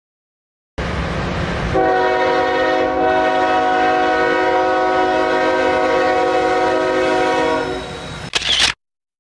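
Diesel locomotive's multi-chime air horn sounding one long, steady warning blast as the train nears a grade crossing with a truck crossing in front, over a rumble that starts first. Near the end a click and a short loud hiss, then the sound cuts off abruptly.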